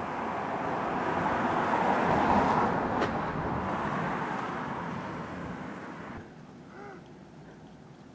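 Road vehicle passing along the street, its tyre and engine noise swelling and then fading, with a short click at its loudest. The noise cuts off abruptly about six seconds in.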